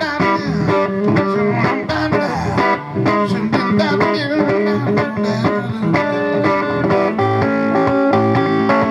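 Blues band playing an instrumental break, with a plucked electric guitar lead over bass guitar and a steady rhythm.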